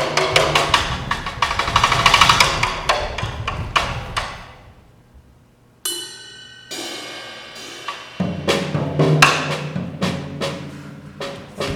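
Percussion music: rapid drum and wood-block strikes build, then die away about halfway through. A ringing tone follows, and the drumming returns over a low sustained bass note.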